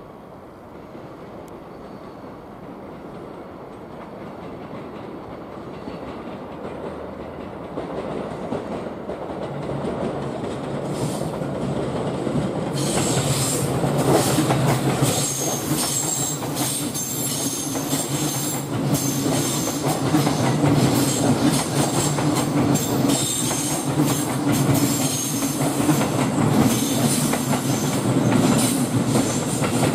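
E653 series electric express train approaching and passing close at low speed: a steady rumble grows louder over the first dozen seconds, then wheels clack over rail joints and points with high-pitched wheel squeal and a steady low hum.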